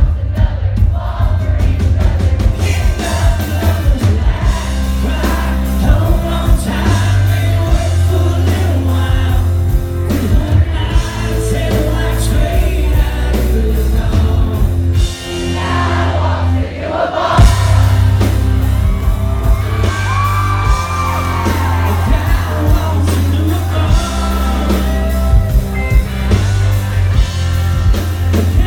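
Live country band playing loud through a PA system: electric guitar, bass and drum kit under a man singing lead, with some yells from the crowd.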